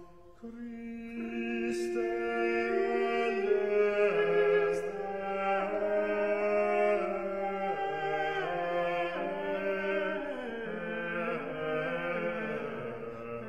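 Background music: slow, chant-like singing with long held notes that move up and down in steps, a new phrase beginning about half a second in.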